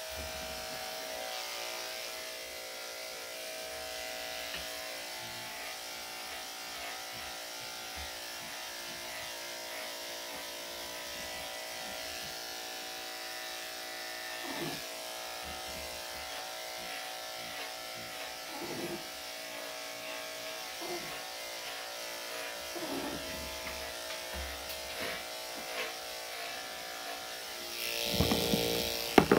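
Corded electric dog clippers with a #5 blade running steadily as they shave a dog's body coat, a constant motor hum. Near the end a louder burst of noise rises over the hum.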